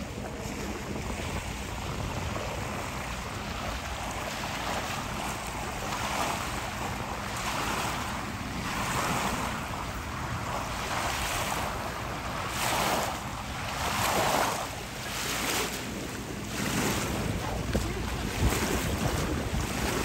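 Wind buffeting the microphone over shallow seawater lapping at a beach. From about six seconds in, repeated swishes of water come roughly once a second.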